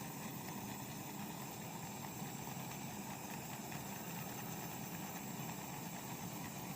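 Gas blowtorch flame burning steadily as it scorches the wood of a bird feeder for a decorative finish.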